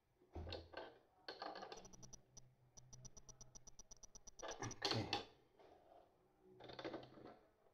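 Hand ratchet clicking in a quick even run, about ten clicks a second for some three seconds, as a nut is tightened on a terminal, with clunks of the tool and metal parts being handled before and after.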